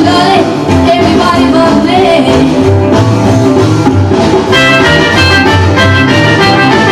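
Recorded band music with a Latin-tinged rock-and-roll feel and a steady bass beat; a vocal line in the first half, then sharp, repeated held notes from the band come in about halfway through.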